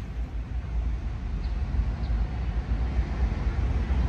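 Low, fluctuating outdoor rumble with no distinct event, like wind buffeting the microphone or distant street traffic.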